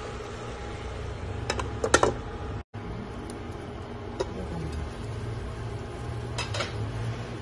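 Metal pot lid and wok clattering in short bursts, twice, with a single click between, over a steady hum. The sound drops out for a moment just before the middle.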